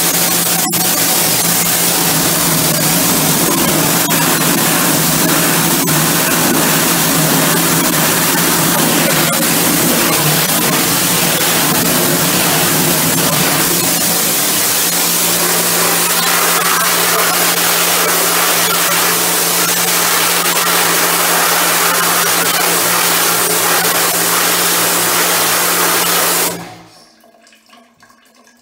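Power washer spraying a high-pressure jet onto shower tiles: a loud, steady hiss of spray with an even hum beneath it. Both cut off suddenly near the end.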